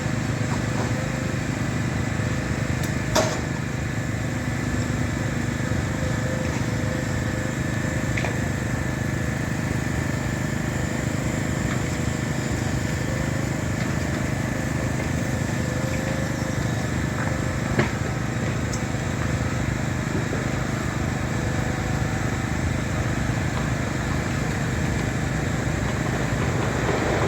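A motor engine running steadily with a low hum and a faint whine, broken by two short sharp clicks, one about three seconds in and one about eighteen seconds in.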